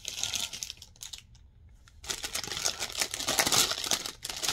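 Plastic packaging crinkling and rustling as it is handled: a short rustle at the start, then a dense, steady crinkling from about two seconds in.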